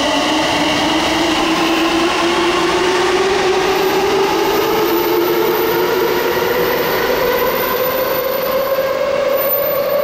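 Tsukuba Express TX-1000 series electric train pulling out of an underground station. Its traction motors whine in a steadily rising pitch as it picks up speed, over the rolling noise of the cars passing the platform.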